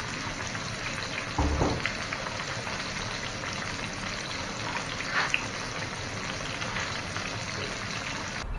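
Crappie fillets frying in hot oil in a pan: a steady sizzle, with a brief louder sound about a second and a half in.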